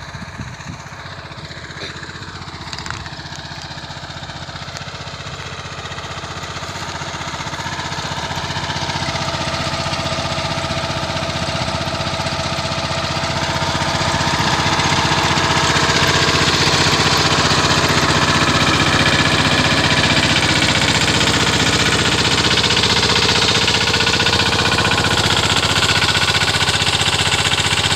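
Mini tractor's engine running steadily, belt-driving a generator. The sound grows louder over the first fifteen seconds or so, then holds steady.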